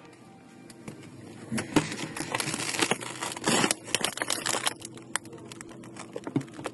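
Rustling and crinkling with scattered sharp clicks, densest through the middle few seconds: hands-on handling noise.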